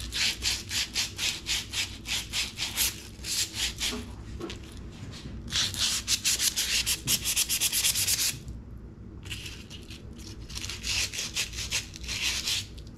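Hand abrasive scrubbing rust off a steel hitch pin: fast back-and-forth rubbing strokes, about four a second, coming in runs with short pauses, including a brief stop a little past halfway.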